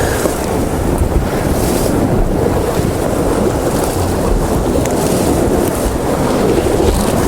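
Wind buffeting the microphone over sea swell washing against the rocks, a steady loud rush.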